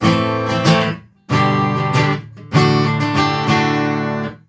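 Martin acoustic guitar strumming chords through its pickup system and amp, in three short phrases with brief gaps between them. The last chord is cut off abruptly near the end.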